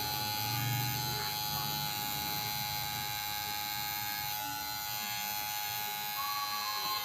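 Electric tattoo machine buzzing steadily as the needle works on skin.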